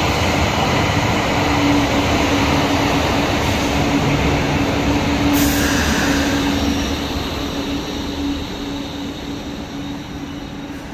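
A Karlsruhe Stadtbahn light-rail car running into an underground station and slowing to a stop, with rumbling wheel and track noise under a steady hum. The noise is loudest for the first several seconds and eases off in the second half as the car slows. A brief sharp tick comes about five seconds in.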